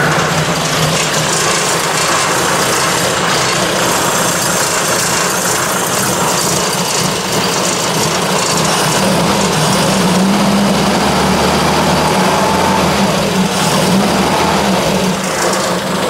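1966 Triumph Spitfire's 1147cc four-cylinder engine idling steadily, just after being started.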